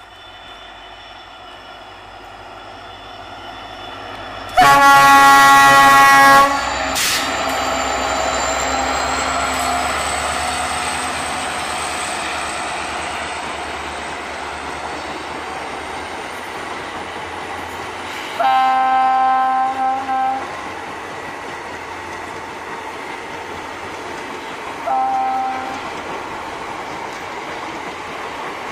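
A WDP-4B diesel locomotive sounds its horn three times while hauling a passenger train past: a long loud blast about five seconds in, another about 18 seconds in, and a short toot near 25 seconds. Under the horn, the train's running noise and wheels clattering over rail joints build up and then slowly fade as the coaches roll by.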